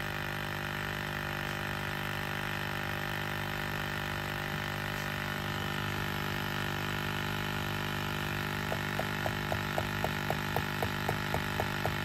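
Super Duty electric vacuum pump running steadily while pulling vacuum on the gauge. About nine seconds in a rapid ticking chatter starts, about four ticks a second, as the pump nears its 15 in-Hg cut-off but cannot quite hold it. That is the sign of a small leak on the pump side, which the mechanic puts down to a cracked canister or a leaking hose.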